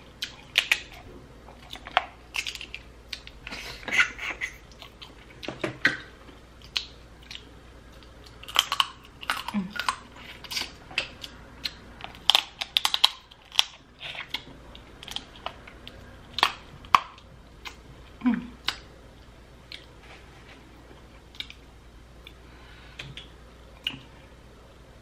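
Close-miked eating of snow crab legs: shells cracking and snapping as they are broken open, mixed with chewing and lip smacks, in irregular sharp cracks that thin out in the last few seconds.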